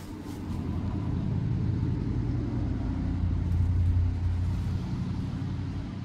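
A motor vehicle's engine rumble passing nearby, growing louder to a peak about four seconds in and then easing off.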